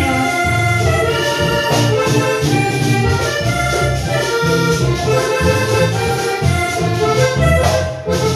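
Latin American dance music played loud, a held melody stepping from note to note over a pulsing bass beat; it dips briefly near the end.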